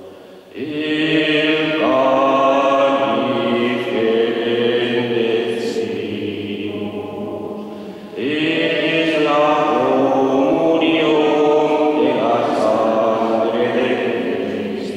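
A choir singing a slow liturgical chant in two long sung phrases, with a brief break about eight seconds in.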